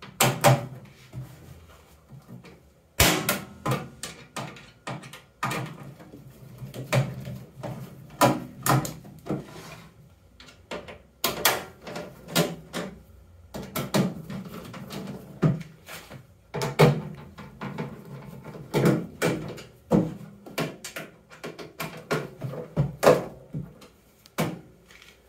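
Microwave oven's sheet-metal outer cover being tapped and knocked into place, an irregular run of sharp knocks and clunks with short pauses between them, to seat the cover further onto the frame.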